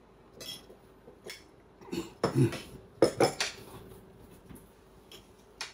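Cutlery and dishes clinking during a meal, in several irregular knocks, the loudest about two and three seconds in.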